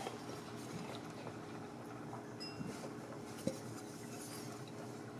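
Quiet kitchen room tone with a low steady hum and a few faint ticks, and one light clink of dishware about three and a half seconds in.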